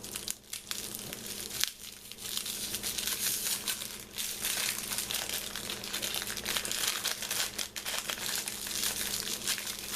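A small plastic packaging bag around a soap being handled and opened, crinkling and rustling. The crinkling is light for the first couple of seconds, then becomes dense and continuous.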